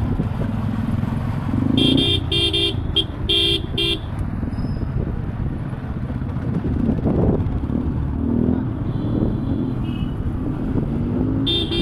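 Motorcycle engines and road noise while riding in traffic. A vehicle horn beeps in a quick series of about five short honks about two seconds in, and honks once more near the end.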